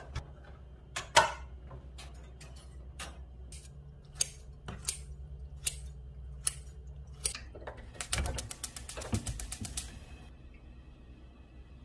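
Kitchen scissors snipping sour kimchi in a stainless steel container, a sharp click every half second or so. About eight seconds in, a rapid run of clicks, about ten a second for two seconds, typical of a gas stove's igniter lighting the burner.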